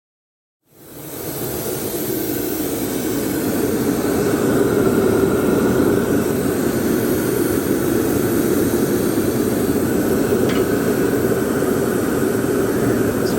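Hairdryer blowing air into a homemade charcoal forge's fire pot for a test fire: a steady rushing with a faint whine that starts about a second in.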